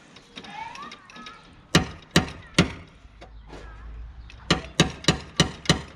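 Hammer blows tapping a dent out of a BMW E36's front wing from behind. There are three separate knocks about two seconds in, then a quicker run of six near the end, about three or four a second.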